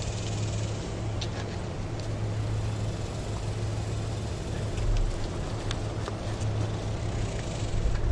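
A steady low mechanical hum with a noisy background and scattered faint clicks.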